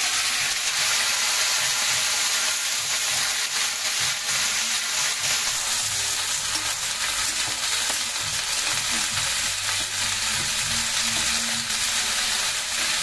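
Cut flat beans and potato pieces sizzling in hot mustard oil in a steel kadai, stirred with a metal spatula that scrapes and clicks against the pan.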